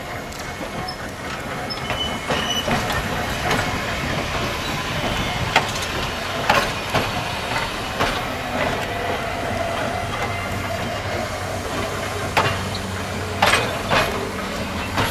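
Pacific Electric red car No. 418 rolling slowly past on the track, its wheels clicking over rail joints at irregular intervals, with a low steady hum setting in about two-thirds of the way through.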